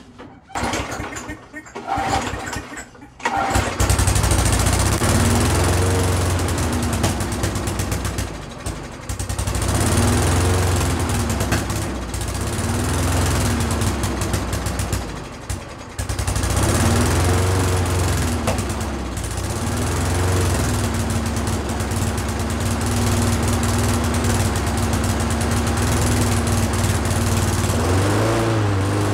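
A Craftsman push mower's small four-stroke engine is pull-started and catches after a few tugs on the cord, about three to four seconds in. It then runs with its speed rising and falling, dipping briefly twice, and picks up slightly near the end.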